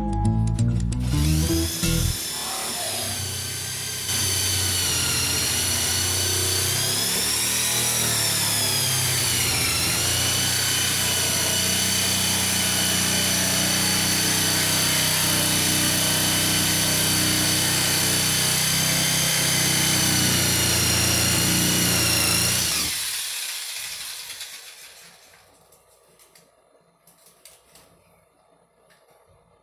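A corded power tool runs steadily against a plywood floor for about twenty seconds with a high whine, its pitch dipping briefly partway through as it takes load, then winds down and stops.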